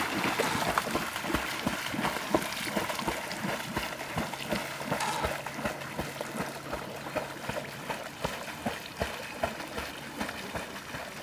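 English Springer Spaniel swimming and paddling hard, its front paws slapping the surface in many quick, irregular splashes.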